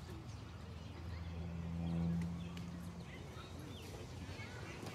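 A low steady hum that swells to its loudest about two seconds in and fades out by three seconds, with a few faint light knocks.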